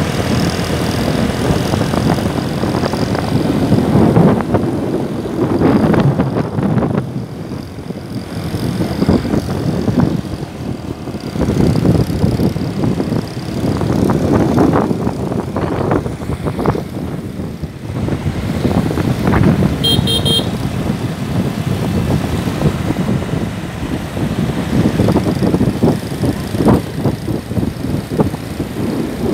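Motorbike engine running at road speed with road and wind noise from riding, swelling and easing every couple of seconds. About two-thirds of the way through there is a brief high-pitched beep.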